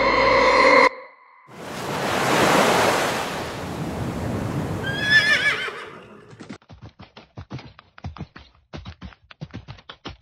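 A held music chord cuts off about a second in. Surf swells up, and a horse gives a short quavering whinny about five seconds in. Then comes a quick, irregular clip-clop of hooves to the end.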